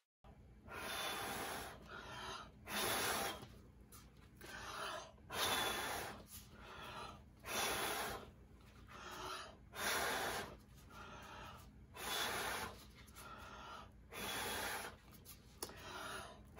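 A person breathing in and out close to the microphone, a steady run of audible breaths about one every second and a quarter.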